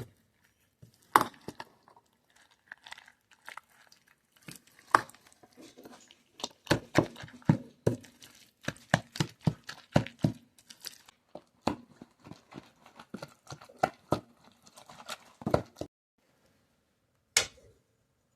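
Kitchenware being handled: a long run of irregular clicks, knocks and scrapes. It falls quiet near the end, then one more sharp click.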